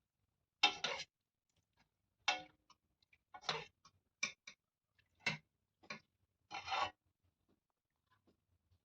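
A cooking utensil scraping against a cooking pot in about eight short, irregularly spaced strokes.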